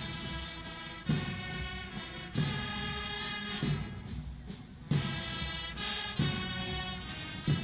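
Ceremonial brass band playing a march: held brass notes over a steady bass drum beat about every 1.3 seconds.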